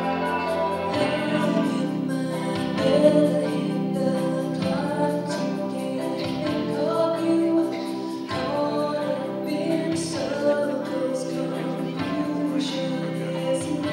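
A small group of singers performing a song live through loudspeakers, several voices singing together.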